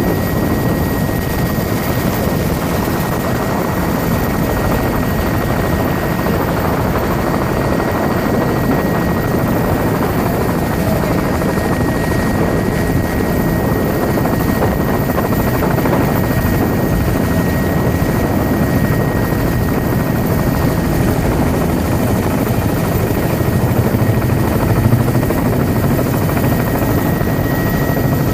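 Helicopter in flight: steady, loud rotor and engine noise with a thin high whine held at one pitch throughout.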